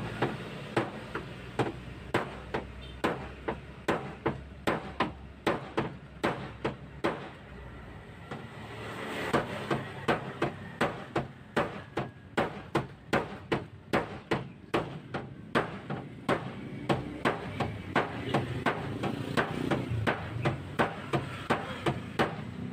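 Hammer tapping out a dent in the sheet-metal rear body panel of a Toyota Alphard: steady sharp taps at about two to three a second, as the panel is beaten back into shape before repainting. The taps pause for a moment about eight seconds in, then carry on.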